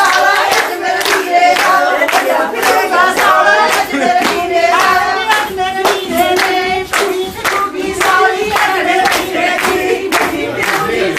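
A group of voices singing Punjabi boliyan together, with steady hand clapping keeping time at about two claps a second.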